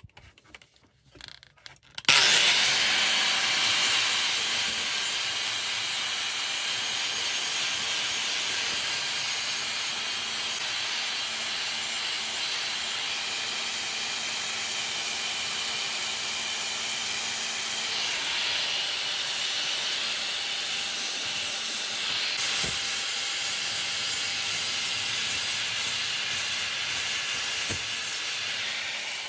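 Angle grinder with an abrasive disc starting about two seconds in and grinding steadily as it shapes a wooden knife handle: a loud, even grinding noise with no breaks, easing off slightly near the end.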